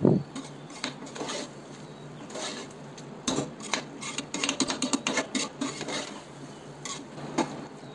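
A spoon scraping and clinking against the inside of a pressure cooker as soaked basmati rice is gently stirred into chicken gravy, in scattered irregular strokes that come thickest in the middle.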